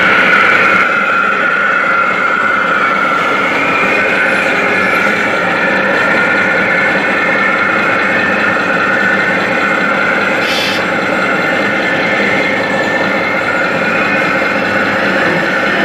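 Radio-controlled scale construction models running, among them a CAT D25D dump truck model: a steady mechanical hum with a wavering high whine from the models' drives. A brief hiss about ten and a half seconds in.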